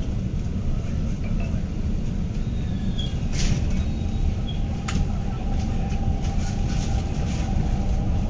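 Cabin noise of an MTR Kwun Tong line Q-Train, a CRRC Qingdao Sifang-built metro train, pulling away from a station. There is a steady low rumble, a faint motor whine comes in about halfway as it gathers speed, and two sharp clicks sound midway.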